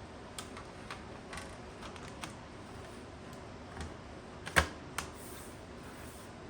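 Scattered light clicks and taps of plastic laptop parts being handled and fitted during reassembly, with one sharp click about four and a half seconds in and a smaller one just after.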